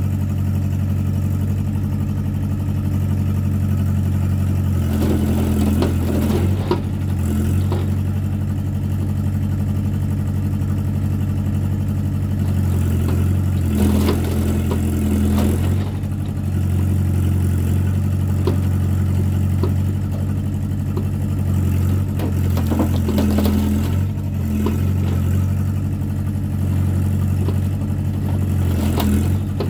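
Mini excavator's diesel engine running steadily while the hydraulic arm works the bucket into a burnt car wreck, with bursts of clatter and scraping about four times.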